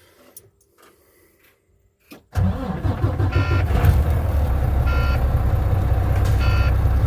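A semi truck's diesel engine cranks and catches about two seconds in, then runs at a steady idle. A beeping tone sounds four times, about every second and a half, over the idle.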